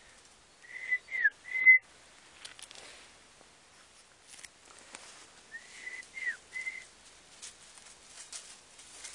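A person whistling a three-note call to the dogs, twice about five seconds apart: a steady note, a quick falling slur, then a steady note. Faint rustling in dry brush between the calls.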